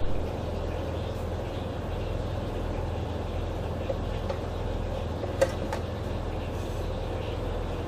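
Shrimp sizzling in a hot electric grill pan, with a few small pops and one sharper pop about five seconds in, over a steady low engine hum.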